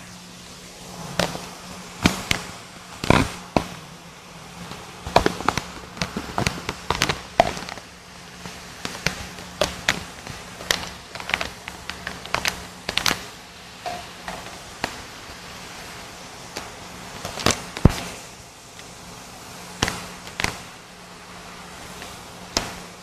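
Irregular sharp knocks and clatters of hard objects, several a second at times, with a steady low hum underneath.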